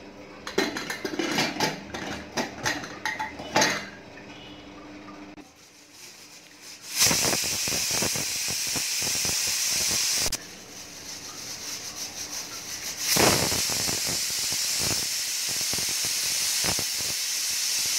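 Metal clinking and clatter at a pot. Then a pressure cooker's weighted whistle valve lets off steam in two long, loud hisses: the first starts about seven seconds in and lasts about three seconds, and the second starts about three seconds later and runs on. This is the cooker reaching pressure while mutton curry is pressure-cooked by the number of whistles.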